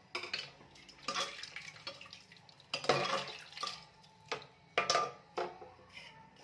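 Kitchen work sounds: a string of short, irregular clatters and clinks of utensils and dishes, with some water.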